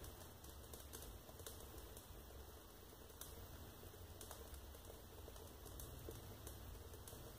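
Faint, irregular crackling of a wood fire burning behind the closed glass door of a stove, over a low steady hum.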